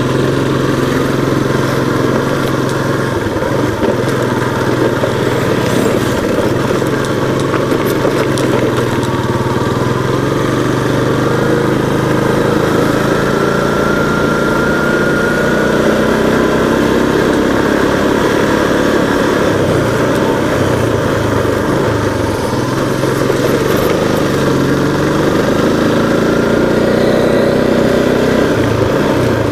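A vehicle engine runs steadily on the move, its pitch drifting gently up and down, under a constant haze of road and wind noise. A higher whine rises in pitch about halfway through and again near the end.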